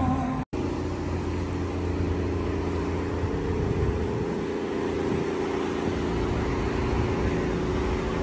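Wind buffeting the microphone: a steady low rumble with a faint steady hum underneath, starting after a brief dropout about half a second in.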